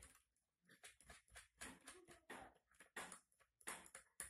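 Faint, irregular clicks and rustles of a small mains transformer and its wires being handled and set down by hand.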